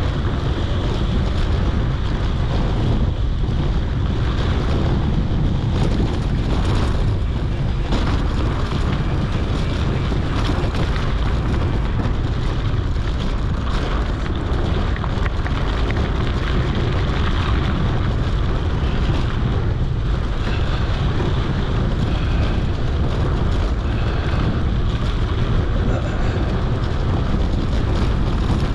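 Wind buffeting an action camera's microphone on a moving mountain bike: a steady, loud rumble with the rush of the bike's tyres rolling over the dirt road underneath.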